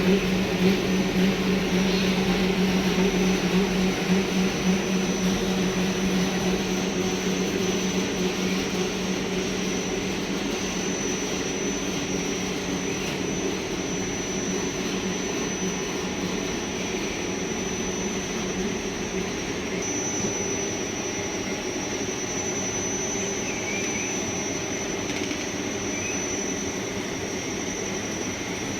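Fried instant noodle production line machinery running: a steady mechanical drone of motors and conveyors, with a low hum and a thin high whine. The low hum is strongest for the first several seconds, then eases off.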